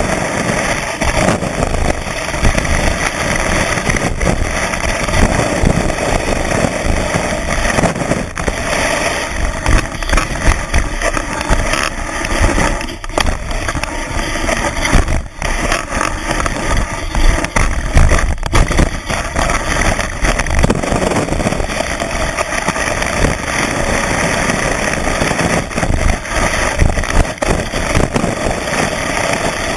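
Skis running over snow, heard through a camera fixed to the ski: a steady rough hiss and rumble with uneven surges as the ski chatters over the surface.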